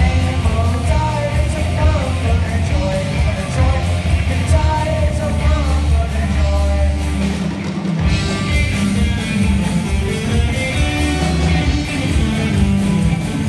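Live rock band playing loud: distorted electric guitars, bass and drum kit, with a singing voice over the first half. About eight seconds in the bass and drums drop out for a moment, then the band comes back in with the guitars to the fore.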